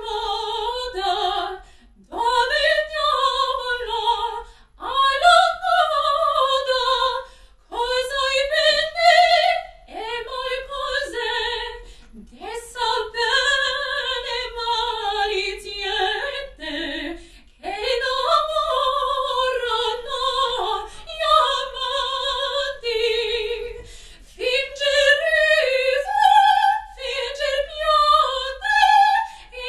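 Operatic soprano voice singing in phrases of two to three seconds with a wide vibrato and short breaths between them.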